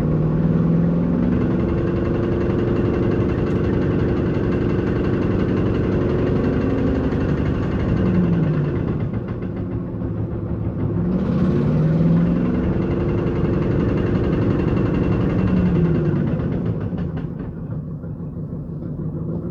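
Ford F-250 Super Duty truck engine running, its pitch falling about eight seconds in, rising again a few seconds later, then falling and getting quieter near the end.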